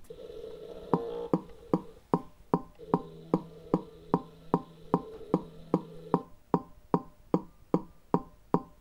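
Evenly spaced sharp clicks, about two and a half a second, starting about a second in, paced with the firing-order lamps of a VR5 cylinder display, over a faint steady hum.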